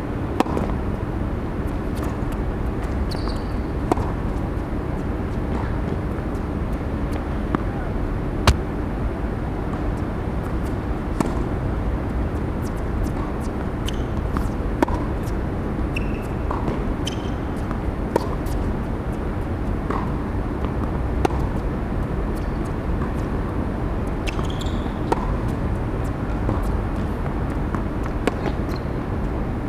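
Tennis ball struck by rackets and bouncing on an outdoor hard court: sharp pops every second or two during rallies, over a steady background hum.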